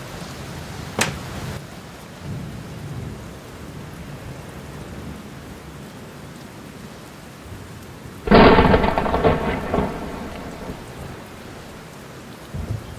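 Thunderstorm: steady rain hiss, a sharp crack of thunder about a second in, and a loud thunderclap a little after eight seconds that rumbles for about two seconds before fading.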